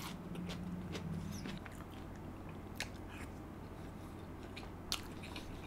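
Close-miked mouth chewing of a soft mouthful of rice with chicken, with wet mouth clicks and smacks. A low steady hum runs for the first second and a half.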